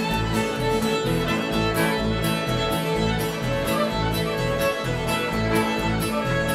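Live bluegrass band playing an instrumental fiddle break: two fiddles carry the tune over upright bass, guitar and mandolin. The bass notes and rhythm chop keep a steady beat of about two pulses a second.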